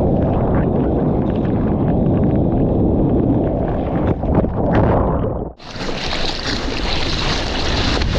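Ocean surf and wind buffeting the microphone: a dense, low rushing rumble. About five and a half seconds in it cuts off abruptly and gives way to a brighter, hissier rush of water and wind.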